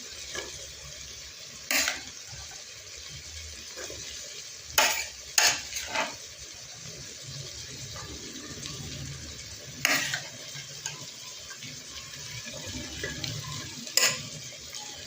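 A spoon stirring a saucepan of simmering offal stew with tomatoes and onions, knocking sharply against the pan about six times over a steady low sizzle.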